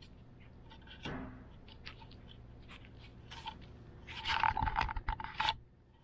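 Scratching and scraping as a small long-haired chihuahua puppy moves about its playpen, with scattered light clicks and a louder cluster of scraping from about four to five and a half seconds in.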